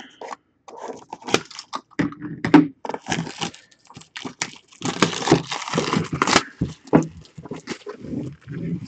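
Plastic shrink-wrap being cut and torn off a sealed cardboard trading card box. Irregular crinkling and tearing with small knocks as the box is handled, busiest from about five to six and a half seconds in.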